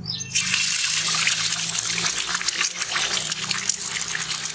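Raw eggs poured from a steel bowl into hot oil in a large iron kadai, sizzling and crackling loudly the moment they hit, about a third of a second in, and then frying on steadily.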